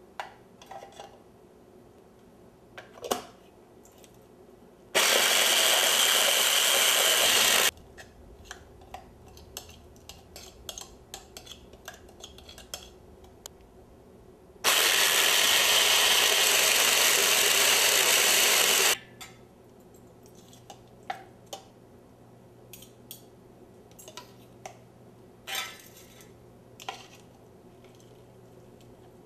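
Electric grinder running in two bursts, one of about three seconds and a longer one of about four, grinding chopped onion, ginger and garlic into a paste. Short clicks and knocks come before, between and after the bursts.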